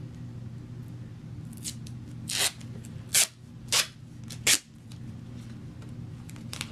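Duct tape being ripped off the roll in four short, loud tearing pulls.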